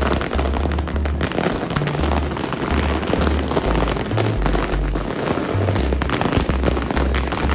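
A long string of firecrackers going off, a continuous rapid crackle of countless small pops.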